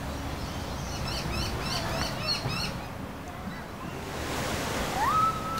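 Outdoor park ambience with birds calling. A quick series of high chirps, about five a second, runs through the first half, then a soft rush of wind, then a clear whistled note that rises and holds just before the end.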